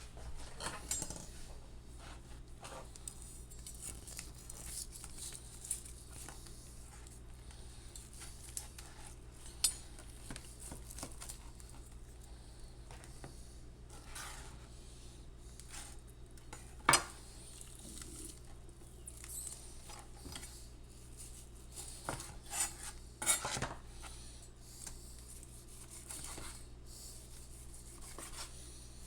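Kitchen cookware and metal utensils clinking, knocking and scraping, with scattered sharp clanks, the loudest about halfway through, over a steady low hum.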